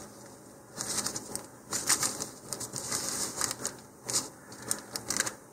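Thin plastic model-rocket parachute sheet crinkling and rustling in irregular bursts as it is unfolded and smoothed flat by hand.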